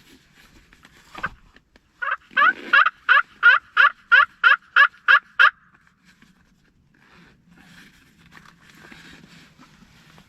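Turkey call sounding a run of about a dozen hen yelps, about three a second, to call a gobbler in. A single knock comes just before it.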